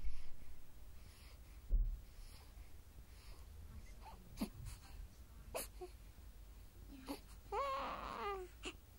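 Sleeping newborn baby making a few short faint squeaks, then a brief wavering whimper, about a second long, near the end. Two low thumps in the first two seconds.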